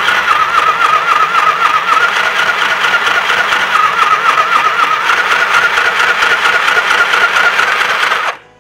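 SM-202A mini portable electric sewing machine running steadily, stitching through cloth: a fast even rattle of the needle mechanism with a wavering whine from its small motor, stopping abruptly near the end.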